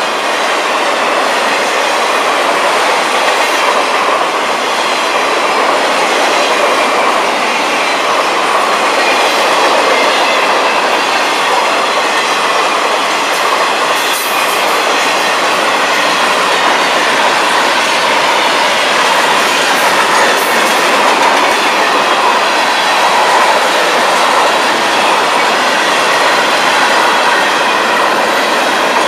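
Florida East Coast Railway freight cars rolling past at steady speed: a continuous rumble and clatter of steel wheels on rail.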